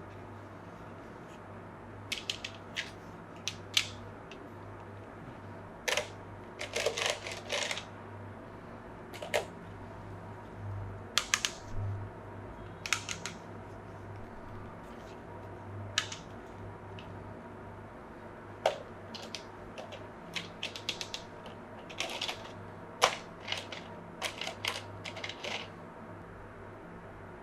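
Irregular light clicks, taps and brief rustles from a Kato N scale model train set and its plastic packaging being handled, over a steady low hum.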